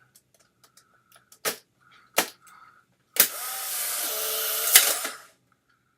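Two sharp clicks as the film pack is seated and the camera's film door snaps shut. Then the Polaroid One Step's motor whirs for about two seconds, ejecting the film pack's dark slide, with a sharp click just before it stops.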